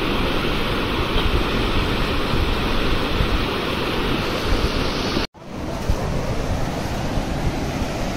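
Steady rush of river water flowing over rocks. It drops out for an instant about five seconds in, then carries on the same.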